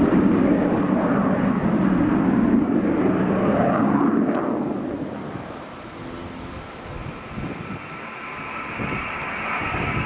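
Eurofighter Typhoon jet noise, loud for the first half and dying away about five seconds in. Near the end a steady high whine grows louder over a lower rumble.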